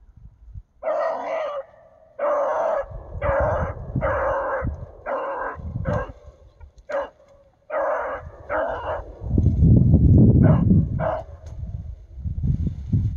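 A hound baying in a run of drawn-out calls, about one a second, as dogs do while trailing a rabbit. A loud dull rumble over the microphone joins in about ten seconds in.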